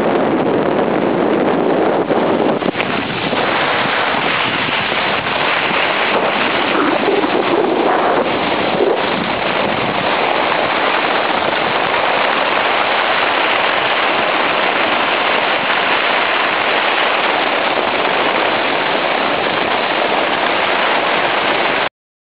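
Steady rushing noise of wind on a small camera's microphone as it moves down a ski slope, cutting off abruptly near the end.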